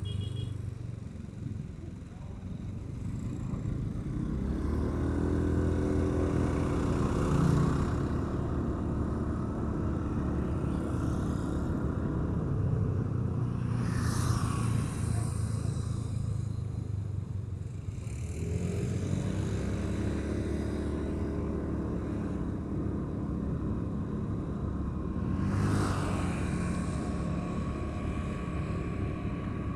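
Motorcycle engine running under way, with wind noise on the microphone. The engine note rises as it accelerates about four seconds in and again around eighteen seconds, and short rushes of noise pass about fourteen and twenty-six seconds in.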